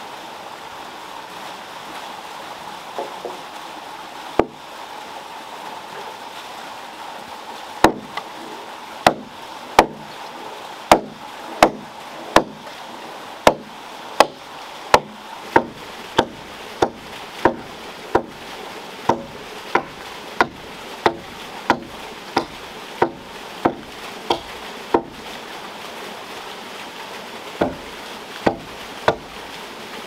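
Regular blows of a hand tool chopping into a wooden log, roughly one a second for most of the stretch, then a pause and a few more strikes. Underneath is a steady rush of water from the waterwheel.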